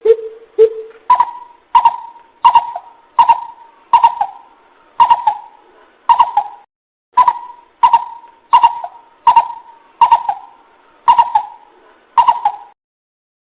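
Coucal calling: a series of short hooting notes, about one every 0.7 seconds, the first two lower in pitch, with a brief pause about halfway through. The recording is a lure call used to draw coucals in.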